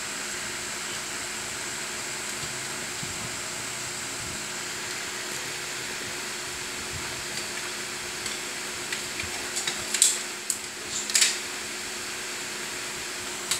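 Steady whirring hiss with a faint high whine and a low hum. From about eight seconds in come scattered small clicks and rustles, with two sharper crackling bursts about ten and eleven seconds in.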